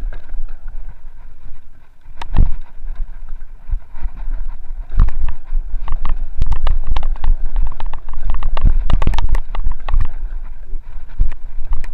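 Commencal mountain bike ridden fast down a rough dirt trail. Wind buffets the microphone with a low rumble, over a rattle of knocks and clatter from the bike striking roots and rocks, sparse at first and dense through the second half.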